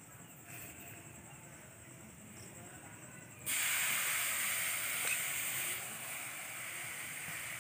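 Grated coconut mixed with sugar hitting a hot kadai and sizzling. The sizzle starts suddenly about halfway through and eases a little a couple of seconds later.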